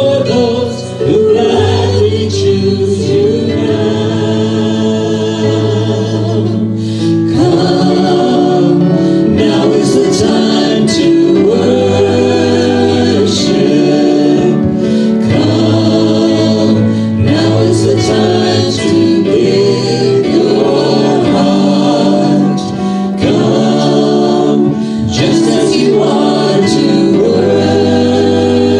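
Several voices singing a contemporary worship song together, led by a small band with an acoustic guitar.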